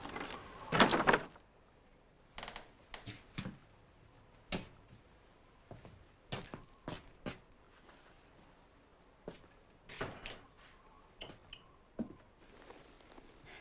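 Scattered small clicks, knocks and rustles of objects being handled, with a louder rustle about a second in.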